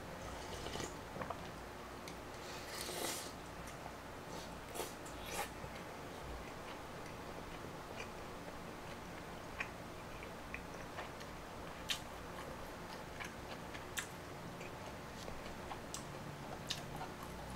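Eating spicy maratang soup: close chewing and mouth sounds, with scattered sharp clicks of a metal spoon and tongs against the takeout bowl.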